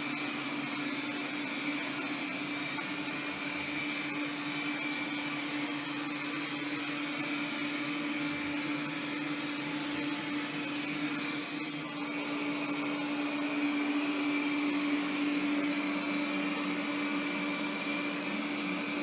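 Vacuum cleaner running steadily with a constant hum and whine. About twelve seconds in it gets a little louder and a higher whine joins in.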